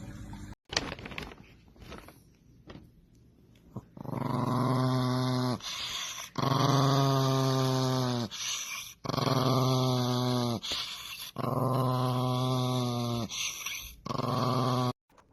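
A pet animal making five long, low calls in a row, starting about four seconds in, each lasting a second or more with short breaks between.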